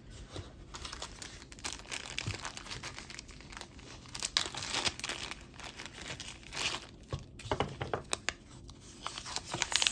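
Small clear plastic jewelry bag crinkling and rustling in the hands as it is opened and a bracelet and its paper tag are taken out: irregular crinkling with a few louder bursts.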